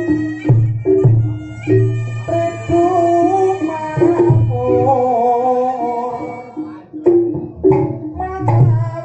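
Amplified reog accompaniment music: deep drum strokes under a wavering pitched melody, with a short drop in the drumming about seven seconds in.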